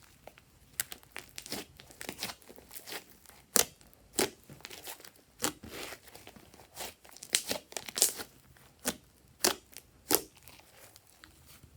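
Slime being handled: irregular sharp crackles and pops, some single and some in quick clusters, about one or two a second.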